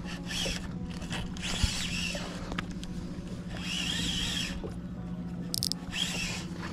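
Boat motor running steadily at trolling speed, a constant hum, with short high-pitched sounds coming and going every second or two over it.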